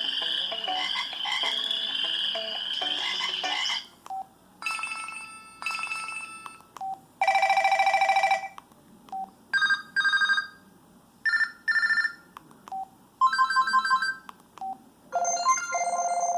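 LG Helix UX310 cell phone playing its built-in ringtones and alert tones through its speaker. A warbling electronic tone runs until about four seconds in, then a string of short electronic beep patterns follows, each a second or so long and separated by a short single beep.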